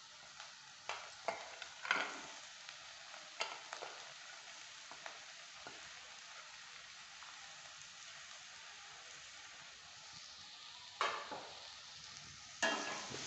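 Onions and mint frying gently in oil in a stainless steel pan, a faint steady sizzle. A metal spoon scrapes and knocks against the pan several times in the first six seconds and again near the end as the vegetables are stirred.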